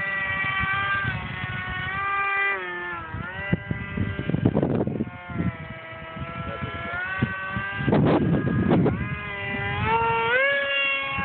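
Electric motor and 7x4 propeller of a foam RC F-22 jet whining in flight, the pitch sliding up and down with throttle and passes. Wind buffets the microphone twice, about four seconds in and again about eight seconds in.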